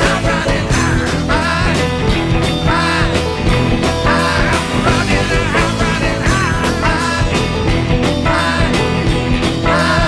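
Rock music soundtrack with electric guitar, a steady drum beat and a wavering lead or sung line.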